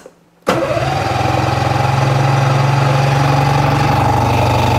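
Electric starter cranking a Yamaha Phazer II's two-stroke twin snowmobile engine, a steady rhythmic turning-over with a starter whine that rises briefly as it spins up about half a second in. This is a test of the starter after it was taken apart, and the engine turns over without catching.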